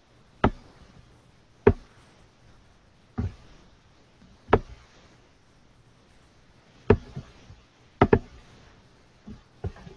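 Clicks and taps on a laptop: about ten sharp ones at uneven intervals, several coming in quick pairs in the second half.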